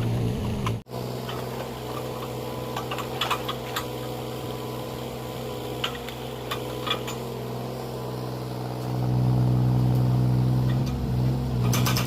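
Mini excavator engine running steadily, with a few sharp knocks over it; the engine grows louder about nine seconds in.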